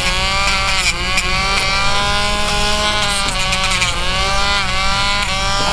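Rotary pet nail grinder with a sanding drum whining steadily as it grinds a dog's toenail, its pitch dipping briefly a few times as the drum is pressed against the nail.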